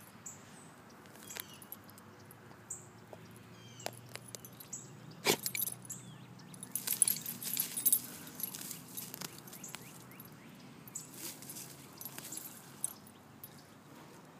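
A dog digging in loose soil with its front paws: uneven scratching and scraping of dirt, with the metal tag on its collar jingling. There is a sharp click about five seconds in, and the busiest stretch of digging comes around seven to eight seconds in.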